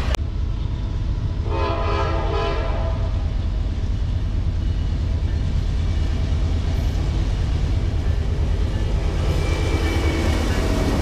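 Freight diesel locomotive's air horn sounding one chord-like blast of about a second and a half, a little over a second in, from a Norfolk Southern train approaching. Under it runs a steady low rumble, and the diesel locomotives' engines and wheels grow louder near the end as they come alongside. A sharp click marks the very start.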